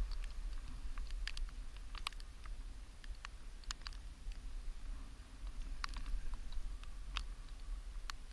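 Wind buffeting the microphone in a steady low rumble, with scattered irregular sharp clicks and ticks over it.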